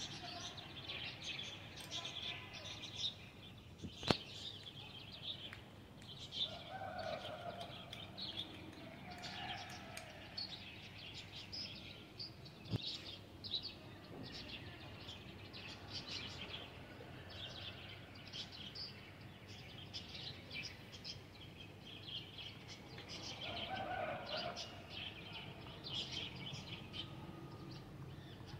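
Birds chirping continuously, many short high calls, with a few lower, longer calls about six, nine and twenty-four seconds in. Two sharp clicks about four and thirteen seconds in.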